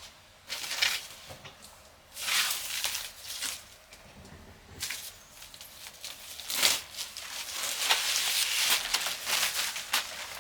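Rustling and scraping of packaging being handled while unboxing a computer monitor, in irregular bursts with a longer stretch near the end.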